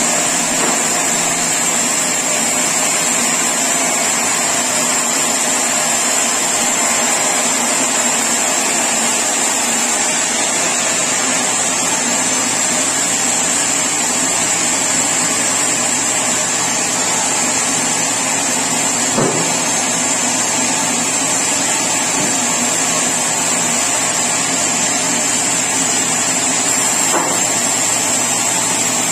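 Sawmill machinery sawing mahogany, running steadily with a constant high whine over a low hum.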